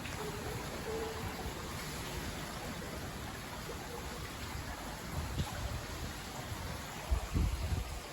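Steady rain falling, an even hiss. Low rumbles come once about five seconds in and again near the end.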